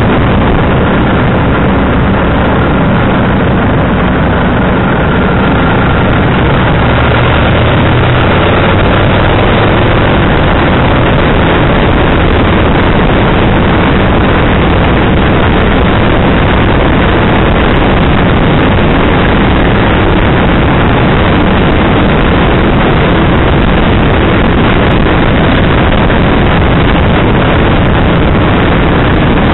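Motorcycle riding at road speed: a loud, steady rush of wind on the microphone mixed with the engine of a Kawasaki VN1500 V-twin cruiser. The engine's low note shows through for the first several seconds, then the wind noise covers it.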